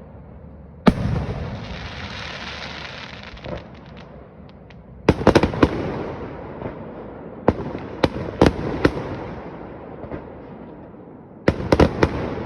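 Fireworks display: aerial shells bursting with sharp bangs. One bang about a second in is followed by a few seconds of hiss, then a cluster of bangs comes midway, several single bangs follow, and another cluster comes near the end.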